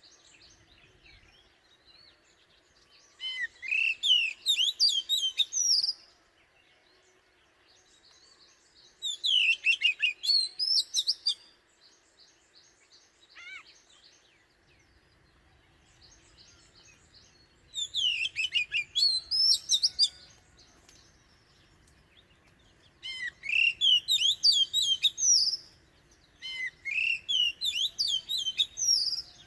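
Oriental magpie-robin singing: five phrases of quick, varied whistled notes, each two to three seconds long, with pauses of a few seconds between them.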